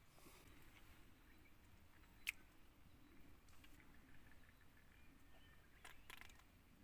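Near silence, broken by one sharp click about two seconds in and a few faint short rustles near the end.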